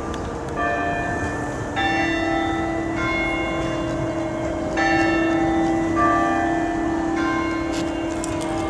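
Bells ringing, with a new stroke about every one to two seconds. Each stroke rings on over a steady held tone.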